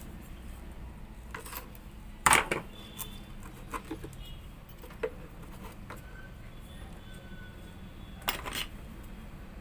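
Hands handling a small amplifier circuit board and its hookup wires: scattered light clicks and rattles, with a louder clatter about two seconds in and again near the end.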